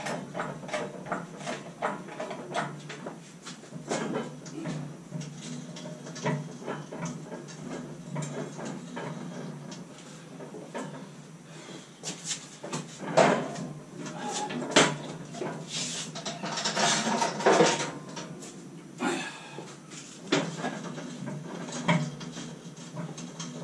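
Irregular knocks, clunks and creaks from a homemade steel gantry crane being pushed on its casters across a concrete floor with a 4,900-pound lathe hanging from it, loudest in a cluster about two-thirds of the way through.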